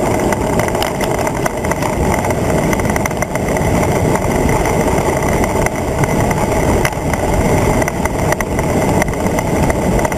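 Steady wind rushing over the microphone of a handlebar-mounted camera on a road bike moving at speed, mixed with tyre and road noise.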